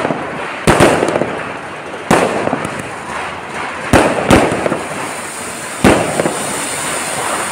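Firecrackers bursting in sharp bangs, about six of them at irregular intervals, some in quick pairs, over the steady hiss of a flower-pot fountain spraying sparks.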